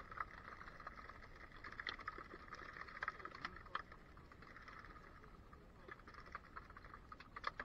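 Faint, scattered knocks and clatter of a fish-trap net being hauled and tuna being handled by hand, over a steady low background hiss.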